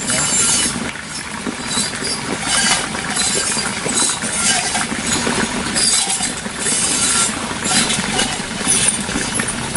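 Skewers of monitor lizard satay sizzling and crackling over charcoal as oil is brushed on with a bamboo brush, the hiss swelling and fading in irregular surges.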